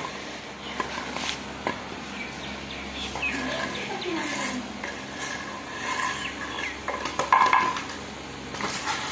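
Empty plastic bottle crinkling and clattering on a hard floor as a puppy carries, chews and bats it, with several sharp knocks, the loudest near the end.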